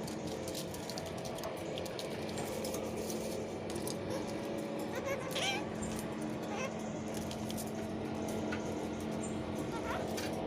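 Kakariki parakeet giving a few short, quick chirping and chattering calls, the clearest a little after halfway and another near the end, over a steady low hum.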